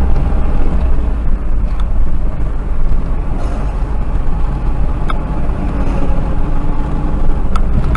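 Steady low rumble of a car driving, its engine and road noise picked up inside the cabin by a dashboard camera, with a couple of faint ticks.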